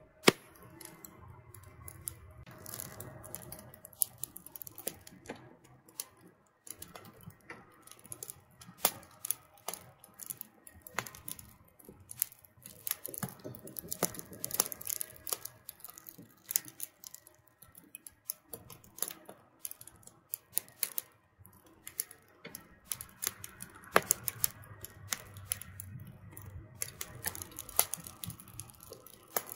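Wood fire of fresh-cut branches and dry twigs burning in a metal grill box, crackling with irregular sharp pops, a few louder snaps standing out, one right at the start and one about three-quarters of the way through.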